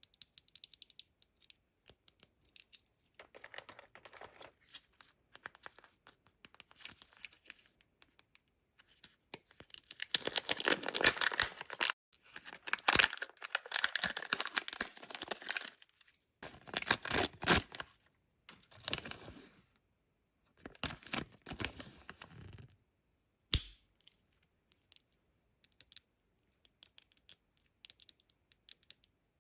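Surprise-egg packaging being torn open and crinkled by hand. The crackling comes in irregular bursts, loudest in the middle, with light clicks and taps in the quieter stretches.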